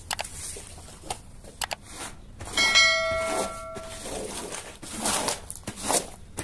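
Two short clicks, then a single bell ding about two and a half seconds in that rings out for about a second, like the sound effect of a subscribe-button animation. Later come wet swishes of a broom and squeegee pushing foamy, muddy water over the carpet.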